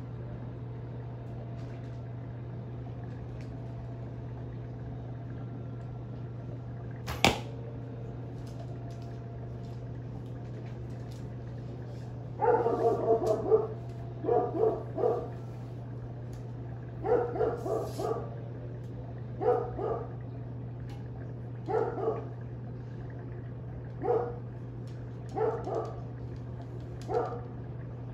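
One sharp snap about seven seconds in as an arrow is shot from a recurve bow. From about twelve seconds in, a dog barks again and again in short bursts every second or two, over a steady low hum.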